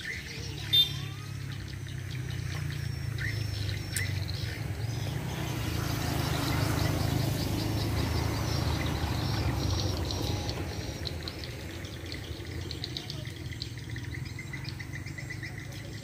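Edible-nest swiftlets twittering: dense, rapid high chirps from the lure-call sound played on a swiftlet house and from the swiftlets flying around it. Underneath is a low rumble that swells in the middle, and there is one sharp click a little under a second in.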